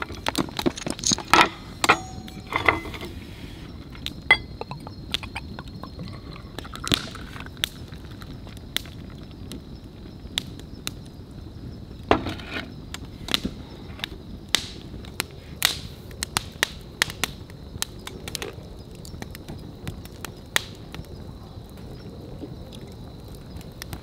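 Wood campfire crackling, with irregular sharp pops and snaps over a low steady hiss.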